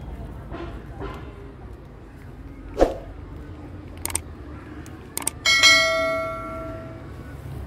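Subscribe-button sound effect: a couple of sharp mouse clicks, then a loud bell ding that rings out for about a second and a half and fades. A single sharp knock comes a few seconds earlier, over a steady low background rumble.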